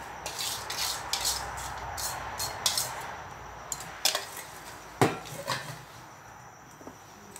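Metal tongs scraping and clicking against an aluminium bowl as crisp fried herbs are shaken out onto a plate, with a dry rustle during the first three seconds. A single sharp knock of metal about five seconds in, then a couple of lighter taps.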